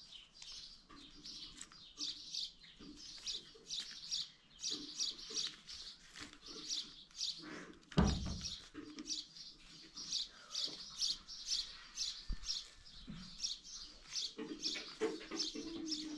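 Small birds chirping rapidly, about three short high chirps a second, with one dull thump about halfway through.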